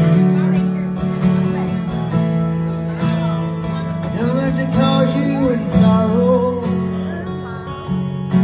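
Acoustic guitar strummed in slow, sustained chords, about one stroke a second. In the middle a man's voice sings a held, wavering line over the guitar.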